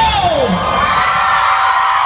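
Concert crowd of fans screaming and cheering, many long high-pitched screams overlapping, as the band's music dies away in the first half-second.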